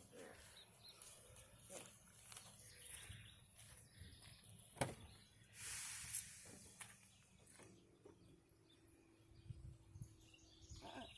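Near silence: faint outdoor background noise, with a sharp click about five seconds in, a brief hiss just after, and a faint steady hum near the end.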